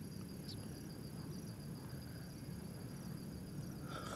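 Crickets chirping in a steady, rapid pulsing trill over a low steady rumble, with a brief clatter near the end.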